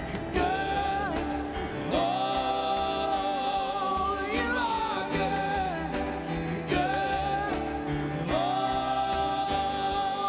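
Live worship music: a woman sings lead into a microphone over a band, holding long notes with vibrato, twice.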